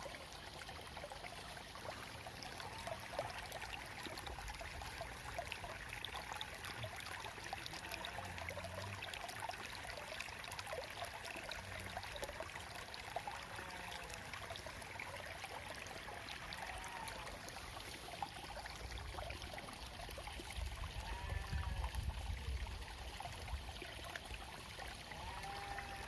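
Water flowing and trickling steadily along a small ditch. A low rumble swells briefly about three-quarters of the way through.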